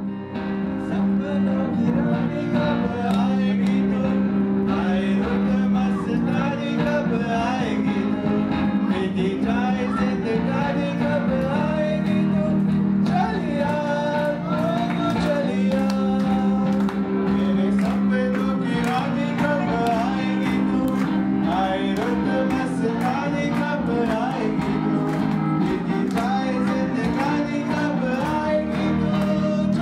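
Live music: a man singing a song into a microphone, accompanied by music with an electric guitar.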